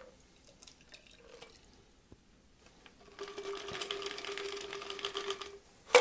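A shaken cocktail poured from a metal shaker tin into a tall glass over ice. There are faint drips and ticks at first, then a steady pouring trickle from about three seconds in for two and a half seconds, and a sharp clink at the very end.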